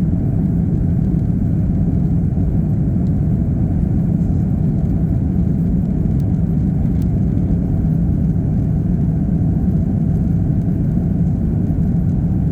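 Steady low roar of an Airbus A330's engines and airflow heard inside the passenger cabin as the airliner climbs after takeoff.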